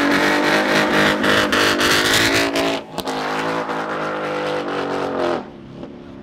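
Ford Mustang GT's 5.0 V8 held at high revs in a burnout, its rear tyres spinning against the pavement with a rough hiss. The car then runs on down the road at high revs, and the engine note drops off sharply about five and a half seconds in.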